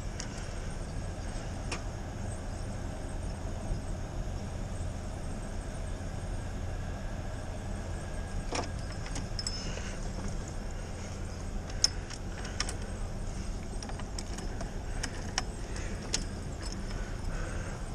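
Steady low rumble with scattered light clicks and a jingle of keys; the Ford Ranger's engine is not running.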